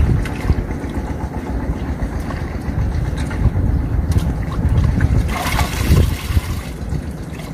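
Wind rumbling on the microphone while hands knead rice-bran powder into water, with a brief splashy swish about five and a half seconds in.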